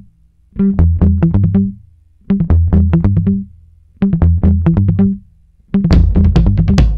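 Electronic music: short phrases of quick notes over bass, separated by brief gaps, turning into a continuous fuller beat about six seconds in.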